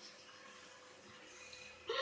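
Near silence: room tone, with a brief short sound just before the end.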